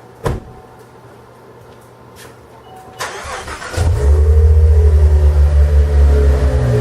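A click, then about three seconds in the 2017 Cadillac ATS-V's twin-turbo 3.6-litre V6 is cranked and catches, flaring loud and settling toward idle through a catless Weapon-X downpipe and mid-pipe.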